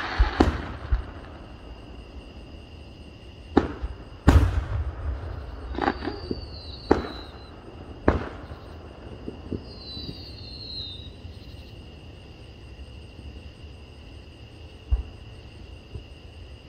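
Aerial firework shells bursting: a run of sharp booms, the loudest about four seconds in with a long rumbling echo, several more over the next four seconds, then a lull and one last bang near the end. Two faint falling whistles are heard between the bursts.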